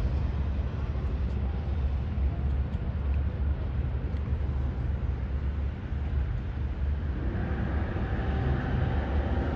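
Steady low rumble of vehicle engines. From about seven seconds in, a pitched engine drone grows in over it.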